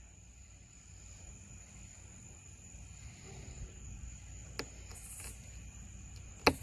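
Steady high-pitched drone of night insects, with two sharp snaps about two seconds apart near the end, the second louder, as a knife cuts through a gray squirrel's foot bones on a wooden table.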